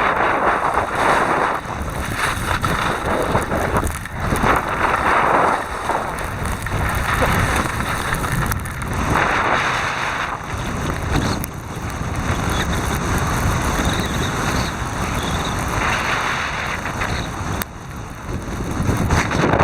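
Wind buffeting the camera's microphone while skiing downhill, a steady rumble under a hiss of skis sliding on snow that swells and fades every few seconds.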